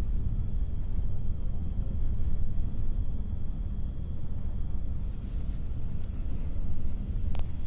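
Steady low rumble of a passenger bus's engine and tyres at highway cruising speed, heard from inside the cabin near the driver. A faint high whine stops about five seconds in, and a couple of sharp clicks come near the end.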